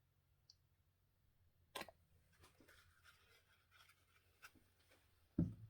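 Quiet handling sounds of paint cups during a colour change: a sharp click about two seconds in, faint taps and light scrapes, then a soft low thump near the end as a cup is set down.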